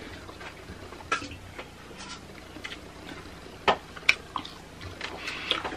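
Eating by hand from a metal plate: a handful of scattered, sharp light clicks and taps as fingers work rice against the plate, with small mouth sounds of eating between them.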